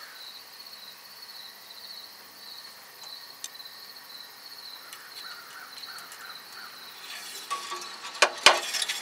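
Insects chirping in a steady, high, slightly pulsing trill, with a few sharp clicks and some rustling handling noise near the end.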